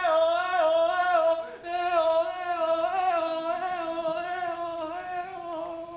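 A single voice holding a long sung note that wavers slightly in pitch, with a brief break about a second and a half in, fading toward the end.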